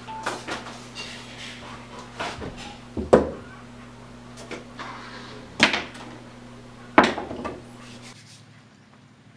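A series of knocks and clatters of small objects being handled and set down on a wooden dresser top, the loudest about three, five and a half and seven seconds in, over a steady low hum that cuts off near the end.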